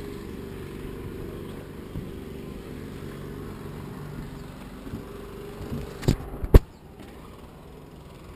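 A steady low mechanical hum, like an engine or generator running, with two sharp knocks about six seconds in, after which the hum drops away.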